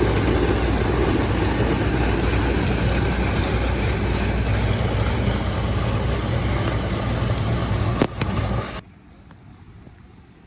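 A steady engine-like running sound with a low hum under dense noise, which cuts off abruptly near the end.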